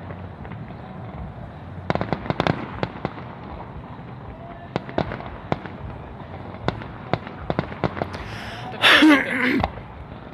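Aerial fireworks shells bursting in a display: a quick cluster of sharp cracks about two seconds in, then scattered single bangs. About nine seconds in comes a louder, denser rushing burst with a wavering pitch.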